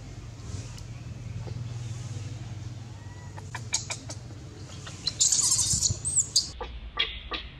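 Infant macaque squealing as its mother grabs and pulls it: a few short shrill squeaks, then about five seconds in a louder burst of high-pitched screaming lasting about a second, and more short squeaks near the end.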